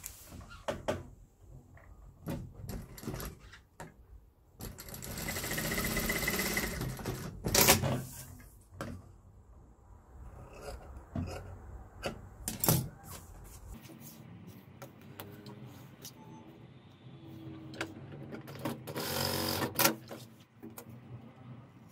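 Industrial lockstitch sewing machine running in short bursts, about five seconds in and again near the end, stitching the diagonal seam that joins two bias-tape strips. Between the runs come scissor snips and clicks of the fabric being handled.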